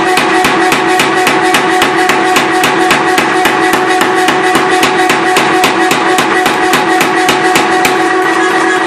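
Power hammer running, striking at about four to five blows a second over a steady ringing hum; the blows fade out near the end.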